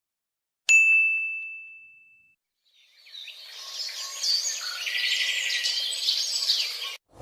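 A single bright bell-like ding that rings at one high pitch and fades over about a second and a half. Then, from about three seconds in, a burst of birds chirping and twittering, which cuts off suddenly near the end.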